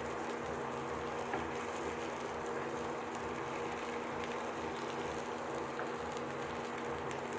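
Oats-and-potato tikkis sizzling gently in a lightly oiled pan on low heat, a steady soft crackling hiss, with a low steady hum underneath.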